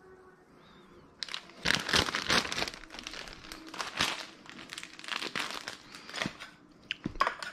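Plastic bag of shaved bonito flakes (katsuobushi) being handled, crinkling and rustling in irregular bursts that start about a second in.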